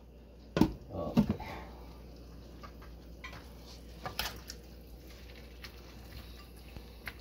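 Metal cookware clattering on the stove: two sharp knocks about a second in, then a serving spoon lightly scraping and tapping in a frying pan as the cabbage, carrots and meat are stirred.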